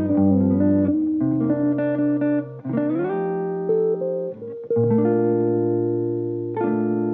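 Background music: a mellow tune led by plucked guitar notes over a bass line, the notes changing every second or so.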